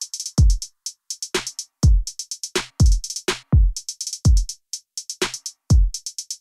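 Background music: an electronic drum beat of deep kicks that drop in pitch, with quick runs of hi-hat ticks between them.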